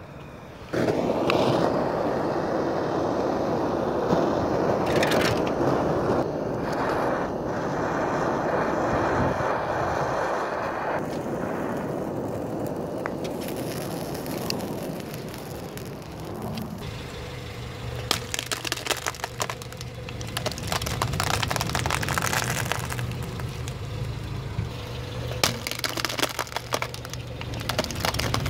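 A handheld gas blowtorch comes on with a sudden loud hiss about a second in and burns for about ten seconds, setting a plastic food tray alight. Later, many sharp cracks and crackles come over a low steady hum.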